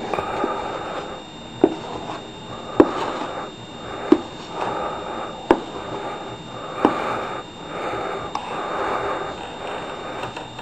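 A utensil swirling through cake batter in a round metal cake pan: repeated swishing strokes, with a sharp tick about every second and a half, six in all, as it knocks against the pan.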